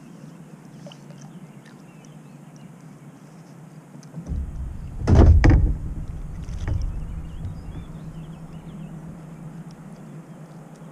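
Knocks and deep rumbling thumps on a kayak's plastic hull, starting about four seconds in and loudest about a second later, with one more knock shortly after, then settling to a low rumble.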